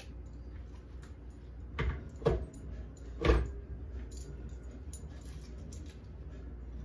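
Hard plastic clunks and clicks as a Hamilton Beach blender jar is handled and seated on its base: three louder knocks about two, two and a half, and three and a half seconds in, with light clicking in between.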